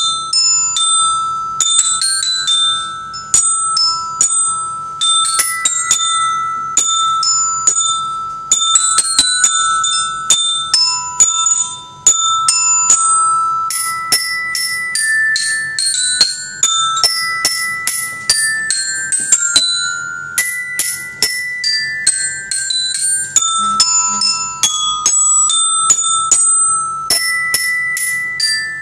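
Glockenspiel played with two mallets: a melody of struck metal bars, each note ringing on, with a brief pause about twelve seconds in.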